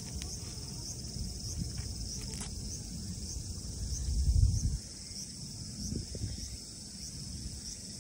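Insects singing steadily in a high-pitched band, with a soft regular pulse about one and a half times a second. A low rumble rises briefly around the middle, the loudest moment.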